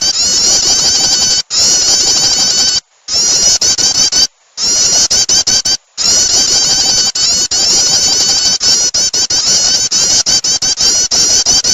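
Prenjak (prinia) bird-lure recording: rapid, high-pitched, dense overlapping chattering calls played loud, cutting out abruptly for a moment three times.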